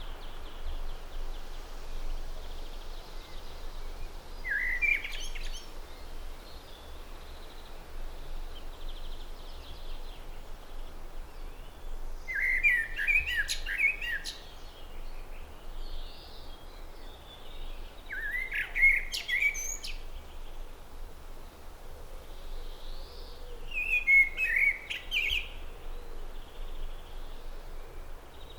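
A songbird singing a short, quick phrase four times, each several seconds apart, with faint twittering in between.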